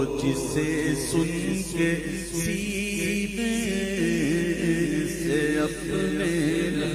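Unaccompanied men's voices chanting through microphones, a continuous drone that wavers gently in pitch.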